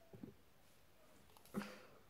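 Near silence: room tone, with one short faint sound about a second and a half in.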